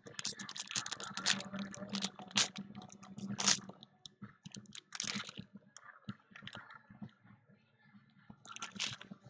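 Trading cards and card boxes being handled by hand: a quick run of sharp clicks and rustles over the first few seconds, then scattered taps, with another short cluster near the end. A faint steady low hum runs underneath.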